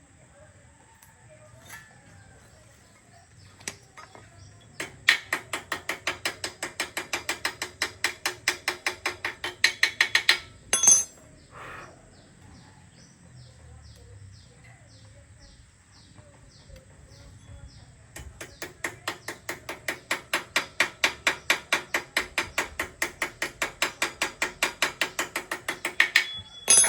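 Hand socket ratchet wrench clicking rapidly, about six clicks a second, in two long runs as a bolt is turned on a motorcycle frame, with a couple of knocks between them.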